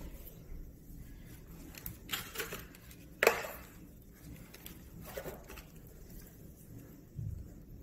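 Handling noises: a plastic external hard-drive enclosure being picked up and set on a stone countertop. Scattered light clicks and knocks, with one sharp knock about three seconds in and a dull thump near the end.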